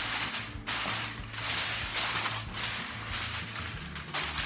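Aluminium foil crinkling and rustling as it is smoothed and pressed down over a sheet pan, in several uneven swells.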